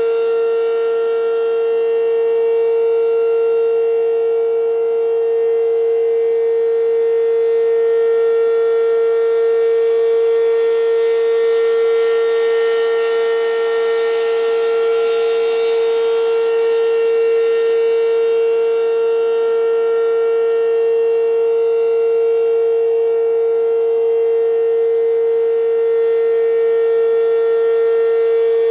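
American Signal RM-127 outdoor warning siren sounding the steady Alert signal: one unbroken tone held at a constant pitch, with no rise or fall.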